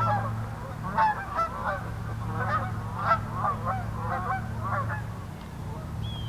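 A flock of geese flying overhead, honking repeatedly in many short overlapping calls, over a steady low hum.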